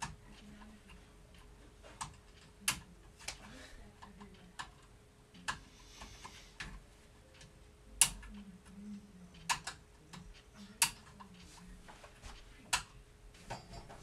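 Irregular sharp clicks and clacks, about a dozen, from hands handling the hard plastic casing of a wireless alarm/doorbell unit and its batteries. A faint steady hum runs underneath.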